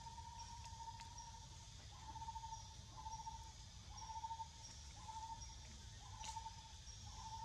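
Faint forest ambience: a mid-pitched call of about half a second repeating about once a second, with a faint high chirp about twice a second.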